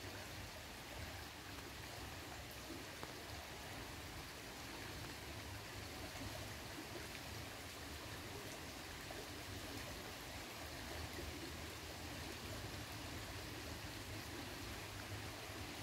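Faint, steady rush of flowing river water, an even hiss with no separate sounds standing out.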